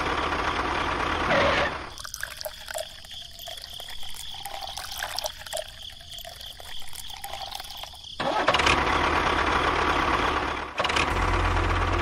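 Steady engine-like motor sound that drops away to faint, uneven splashing of water from about two to eight seconds in, then comes back loud, with a low hum joining near the end.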